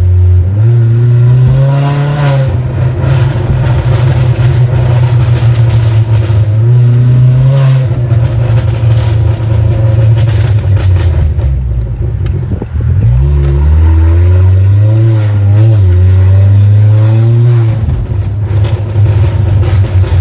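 Honda Accord 1.5-litre turbocharged four-cylinder under hard acceleration: a loud, heavy low engine drone whose pitch rises several times, about 2 s in, around 7 seconds in, and again in the last third.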